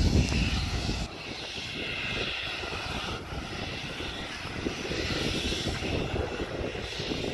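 Steady droning of machinery with a hiss, dropping in level about a second in.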